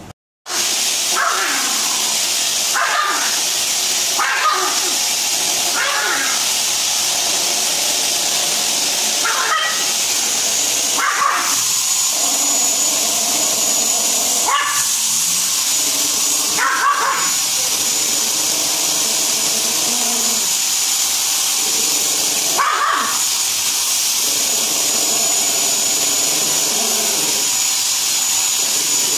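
Canister vacuum cleaner running steadily while a small dog barks at its floor nozzle, about nine short barks spread unevenly over the first two-thirds, with the vacuum's steady noise underneath throughout.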